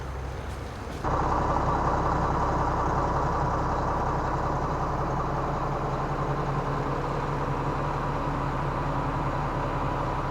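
Heavy machine engine running. About a second in it throttles up sharply, then holds a steady higher speed.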